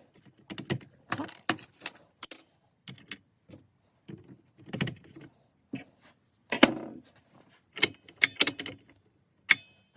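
Irregular clicks, knocks and clatters of a Makita DSS611 cordless circular saw's plastic housing parts and screws being handled and fitted together during reassembly. Near the end a brief high electronic tone sounds, a phone ringing.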